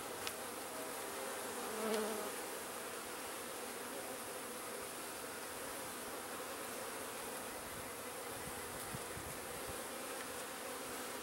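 Honeybees buzzing steadily around an opened nuc hive during a frame inspection. The hum swells briefly about two seconds in.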